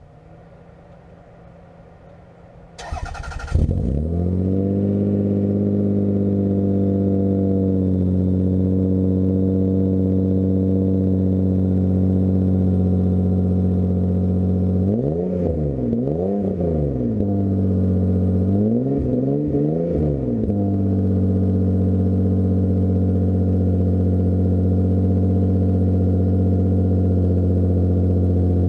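A car engine cranks briefly and catches about three seconds in, then settles into a steady idle. Midway it is revved in two quick pairs of blips before dropping back to idle.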